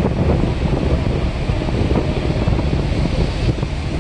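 Wind buffeting the microphone: a steady, loud rumbling noise.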